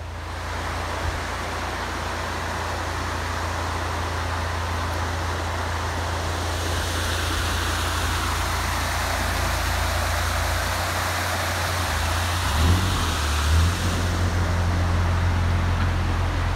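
A narrowboat's diesel engine runs steadily under a building hiss of rushing water in a canal lock. There are two brief low knocks about three-quarters of the way through, after which the engine note rises slightly.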